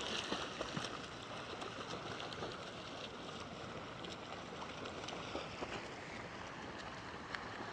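Water splashing and lapping against a kayak's hull as it is paddled, with small drips and splashes scattered through.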